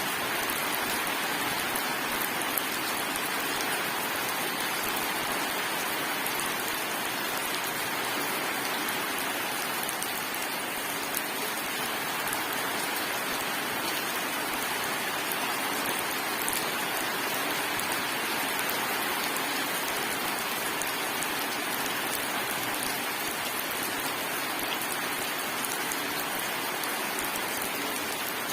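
Steady heavy rain falling on a surface, an even hiss with scattered small drop ticks and no thunder.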